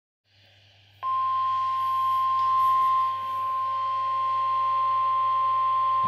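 NOAA Weather Radio warning alarm tone (1050 Hz) played through a Midland weather radio's speaker: one steady, unbroken beep that starts about a second in and holds, signalling that a warning broadcast is about to follow.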